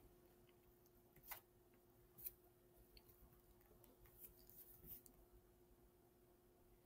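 Near silence: faint room tone with a low steady hum and a few faint, short clicks.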